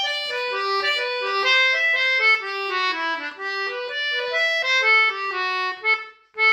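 Background music: a lively melody of short notes changing several times a second, dipping briefly near the end.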